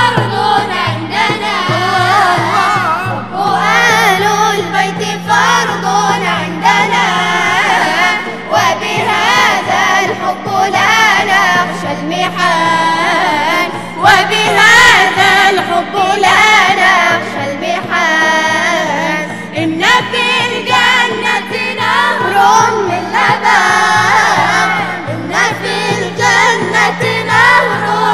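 Mixed group of young male and female voices singing an Islamic devotional nasheed praising the Prophet in unison. A frame drum beats a steady rhythm underneath, with a low held note that changes pitch twice.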